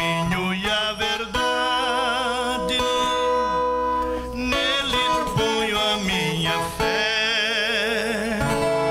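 A man singing a slow gospel hymn with vibrato on long held notes, to his own strummed acoustic guitar.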